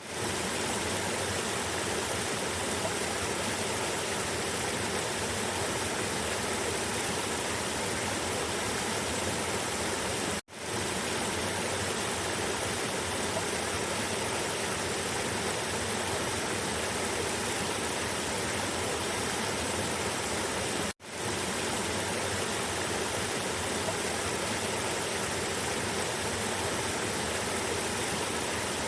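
River water cascading downstream, a steady full rush. It cuts out for an instant twice, about ten seconds apart.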